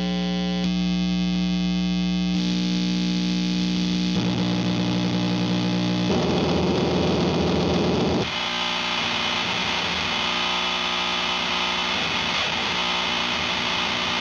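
Electric guitar played through seven fuzz pedals switched on in series at once: held, heavily distorted notes that change every couple of seconds, going thinner and fizzier about eight seconds in. Many frequencies cancel each other along the chain, so the sound is set mostly by the last pedal, an op-amp Big Muff.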